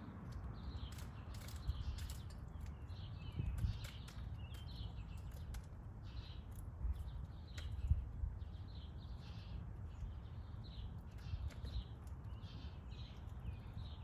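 Wild birds chirping: many short chirps and calls, overlapping and repeated, over a low rumble.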